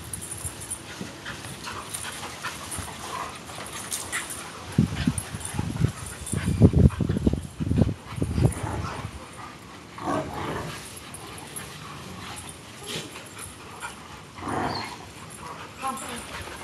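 Several dogs milling about and giving brief calls now and then. About five to nine seconds in comes the loudest part, a run of heavy low thuds or rumbles.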